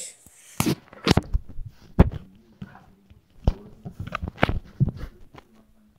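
Bare feet walking on a hard floor: irregular thumps and knocks, mixed with bumps and rubbing from the phone being carried and swung.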